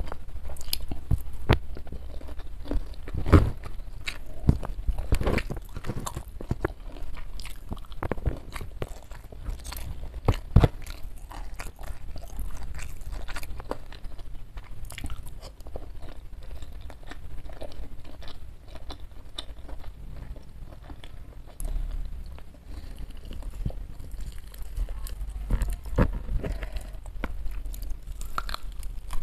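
Close-miked chewing and crunching of rice and crispy fried chicken eaten by hand, with steady crackles and clicks. A few sharper, louder crunches come in the first half.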